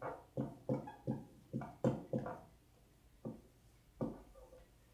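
Dry-erase marker writing on a whiteboard: a quick run of short strokes over about two seconds, then two more spaced out as the writing finishes.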